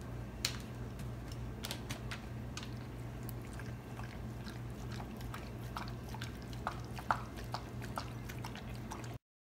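A dog eating raw ground meat from a glass dish: chewing with scattered short clicks, over a steady low hum. The sound stops abruptly near the end.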